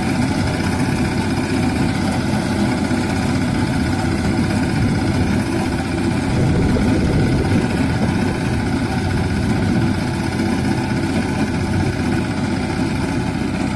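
Engine of a paddy reaper running steadily, a dense low drone, as the machine cuts rice stalks and drops them.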